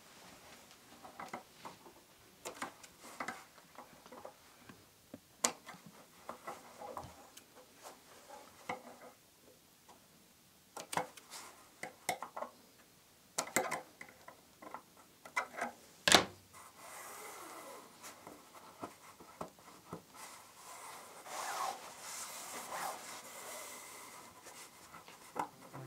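Hand-work handling noise: scattered light taps and clicks with some rubbing, a sharper click about sixteen seconds in, then softer steady rubbing or brushing.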